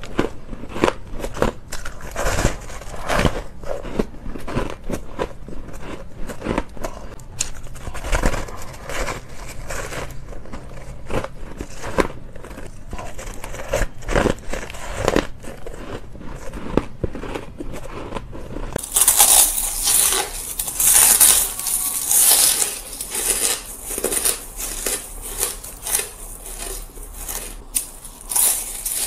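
Close-up bites and chewing of fluffy, dry frozen ice: a string of sharp, crisp crunches and crackles. About two-thirds of the way through the crunching turns brighter and hissier as a different batch of ice is eaten.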